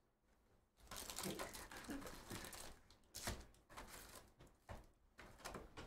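Faint crinkling and rustling of a trading-card hobby box and its plastic wrap and packs being handled and opened, with a few sharper clicks.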